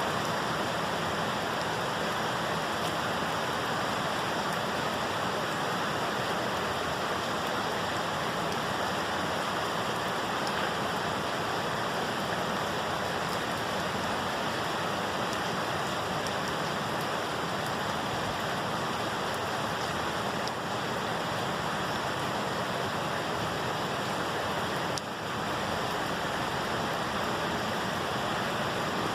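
Rain falling steadily, an even hiss with a short dip in level about 25 seconds in.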